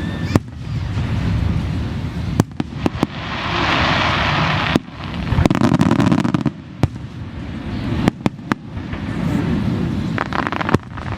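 Aerial fireworks going off: a string of sharp bangs over low rumbling booms, with a stretch of crackling hiss about three to five seconds in.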